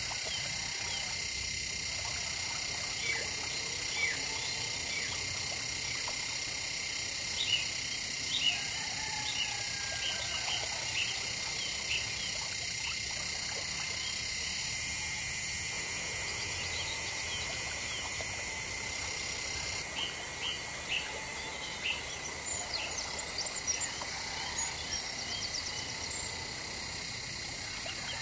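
Tropical outdoor ambience: a steady, high-pitched drone of insects, with scattered short chirping calls over it, busiest in the first half and again near the end.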